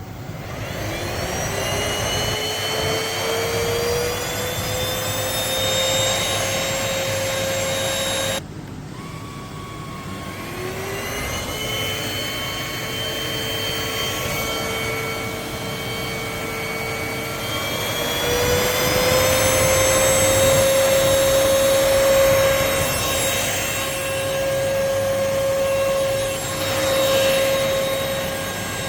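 VersLife Z8 cordless stick vacuum's motor spinning up to a steady high whine. The sound cuts off suddenly about a third of the way through, then the motor spins up again and runs on, its whine rising a little past the middle.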